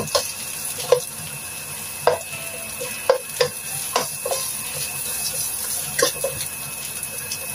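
Sliced onion, shallots and garlic sizzling in a little oil in a non-stick wok, stirred with a plastic spatula that scrapes and taps the pan about once a second.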